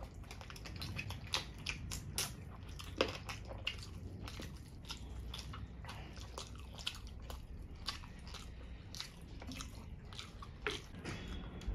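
Two people biting and chewing saucy fried chicken on the bone: a steady run of irregular sharp, wet mouth clicks and smacks.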